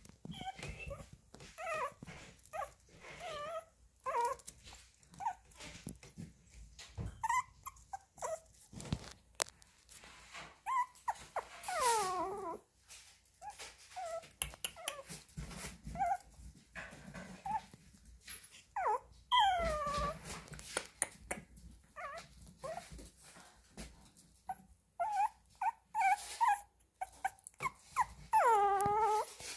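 Chihuahua puppy whimpering: many short, high squeaks and yips throughout, with a few longer whines that fall in pitch.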